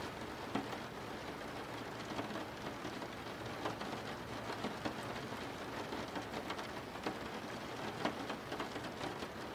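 Steady rain falling, with scattered individual drops tapping.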